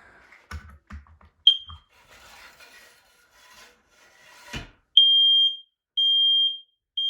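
Knocks and rubbing, a brief high chirp about a second and a half in and a thump, then a smoke alarm under test goes off about five seconds in. It sounds its temporal-3 pattern: three loud, steady, high-pitched beeps about a second apart.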